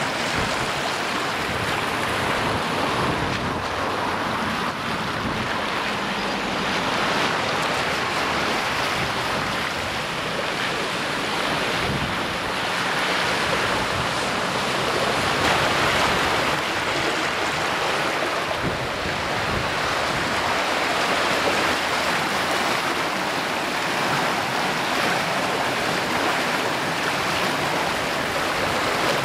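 Swollen river in flood rushing and churning against stone bridge walls: a steady, loud wash of fast, turbulent water.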